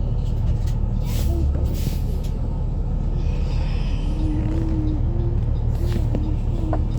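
School bus engine and road noise heard from inside the cabin: a steady low rumble with small rattles and clicks.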